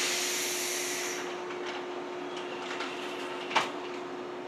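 JR 115-series train standing at the platform, letting out a burst of compressed-air hiss that fades over about a second and a half. A few faint clicks follow, then one sharp click about three and a half seconds in, over the train's steady hum.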